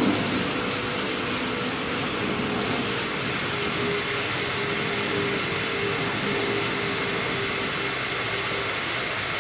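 Model train running on the layout's track: a steady rolling rattle of wheels on rail with a faint, even motor hum.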